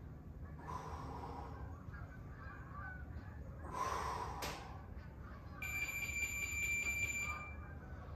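A man exhaling hard twice through kettlebell biceps curls, the second breath ending in a sharp click. After it comes a steady high-pitched tone lasting nearly two seconds.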